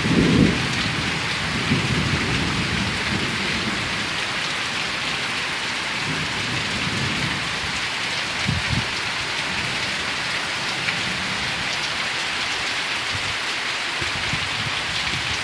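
Heavy tropical downpour pouring steadily onto a dirt yard and banana plants, a dense even hiss of rain.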